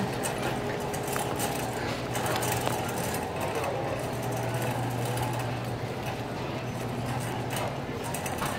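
Shopping cart rolling across a store floor while being pushed from a wheelchair, its wheels and wire frame rattling with a steady run of small clicks, over a steady low hum.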